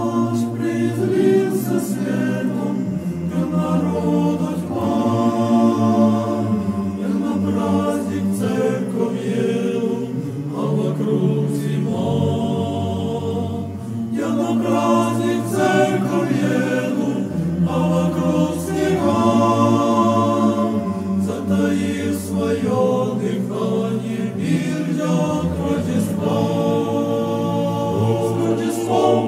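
Orthodox church choir singing a Christmas chant a cappella: several voice parts in sustained harmony over a low bass line, the chords changing every second or two.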